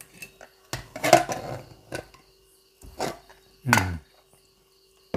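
Aluminium pressure cooker lid being twisted free, lifted off and set down on a table: a few separate metal clanks and scrapes, the loudest about a second in.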